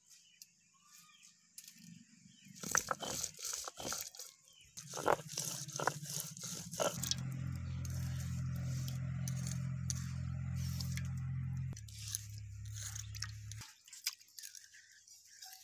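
Wet spice paste being ground on a sil-batta: gritty scraping and crunching strokes of the stone roller on the stone slab. From about five seconds in to about thirteen, a steady low hum runs underneath and is the loudest sound.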